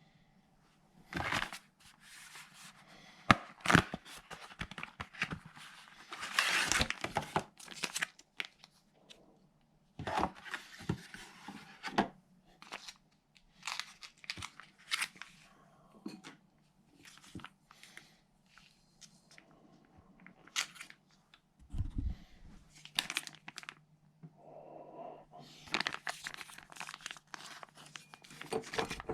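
Packaging being torn and crinkled by hand in short, irregular bursts of rustling and clicks, over a low steady hum.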